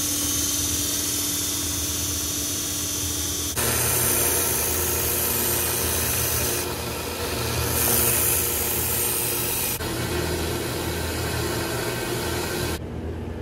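Small bench belt sanders running, a steady motor hum under the hiss of a knife blade being ground on the abrasive belt. The sound changes abruptly several times, as one short clip cuts to the next, and the high hiss falls away near the end.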